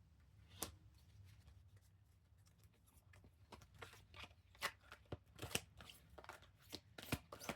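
An oracle card deck being shuffled by hand: a single card snap, then soft, irregular card flicks and rustles that come thicker in the second half.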